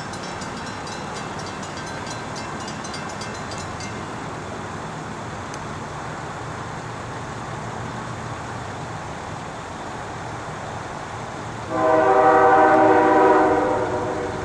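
An approaching train's horn sounds one blast about twelve seconds in: a chord of several notes held for under two seconds, then fading. Before it there is only steady background noise.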